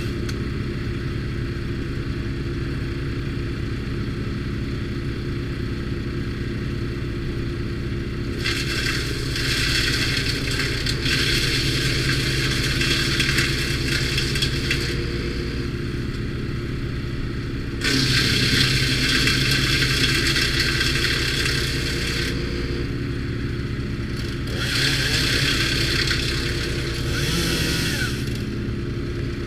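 Timber Wolf TW13/75G wood chipper running steadily, with three spells of wood being fed in and chipped: a harsh crackling rush over the engine, the longest about a third of the way in, the loudest just past the middle, and a shorter one near the end.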